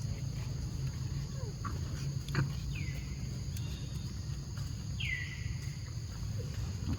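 Two high-pitched calls from a newborn monkey, each dropping sharply in pitch and then holding briefly, about two and a half seconds apart, over a steady low hum.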